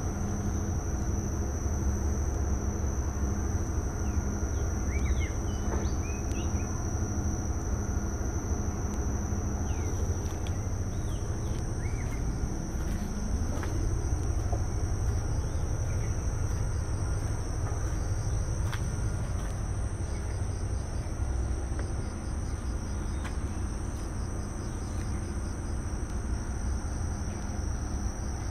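Steady high-pitched drone of insects in the vegetation, with a few brief bird chirps over a constant low rumble.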